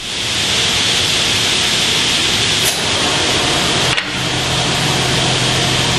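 Woodshop machinery running, most likely the band saw under power, as a steady loud whirring hiss. A brief click comes about four seconds in, after which a low steady hum joins.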